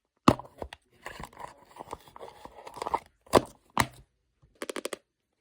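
Hands handling plastic photocard packing materials: sharp taps and knocks, a stretch of scratchy rustling and scraping, then a quick run of clicks near the end.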